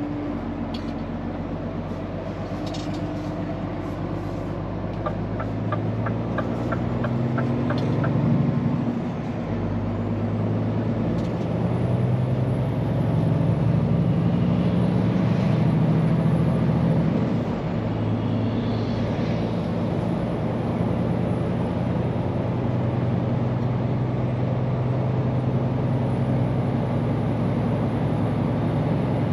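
Scania P410 truck's diesel engine running while driving, its pitch shifting as it changes gear about 9 and 17 seconds in. A run of regular ticks sounds a few seconds before the first shift.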